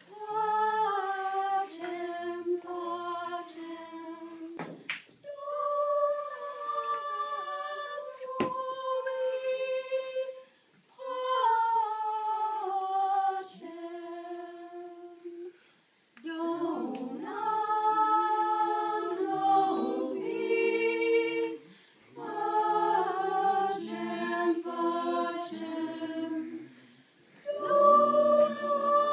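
Unaccompanied singing in phrases a few seconds long, broken by short pauses. In the second half, several voice lines sound together in harmony.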